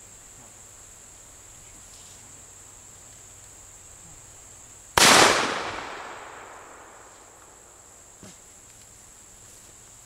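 A single shotgun shot about five seconds in, a sharp crack followed by an echo dying away over a second or two, against a steady high drone of insects.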